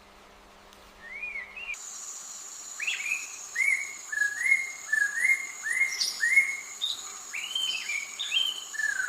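A bird calling in a series of short whistled notes, each rising then falling in pitch, at roughly one to two a second. A steady high-pitched insect drone joins about two seconds in.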